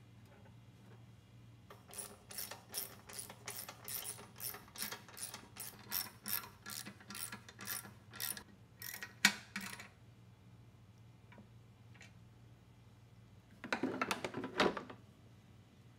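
Ratchet wrench clicking in quick regular strokes, about three to four clicks a second, as it backs out the blower-housing bolts on a small mower engine; the clicking stops about ten seconds in. Near the end comes a short clatter of the plastic blower housing being lifted off.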